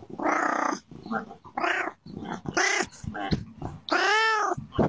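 An orange tabby cat meowing repeatedly, close up to a doorbell camera's microphone: a string of about six meows, the longest near the end rising and then falling in pitch.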